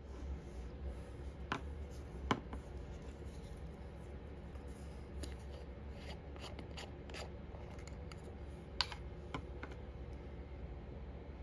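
Scattered small clicks and snips of hobby tools and plastic model-kit parts being handled, the sharpest about two seconds in and just before nine seconds, over a steady low hum.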